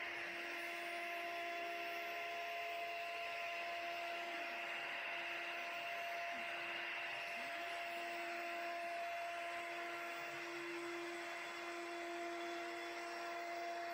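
SmartBench CNC router running steadily as its 6.35 mm two-flute downcut spiral bit cuts a 4 mm-deep profile pass: a steady whine over an even rushing hiss. The dust extraction is running with it.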